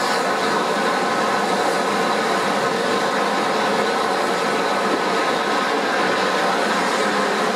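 Steam-hauled train in motion behind Bulleid Light Pacific No. 34046 Braunton, heard from an open carriage window: steady running noise of the train on the rails.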